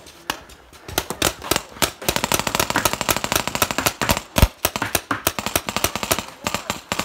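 Paintball markers firing in quick volleys, several at once, many shots a second from about a second in, with one louder shot about four seconds in.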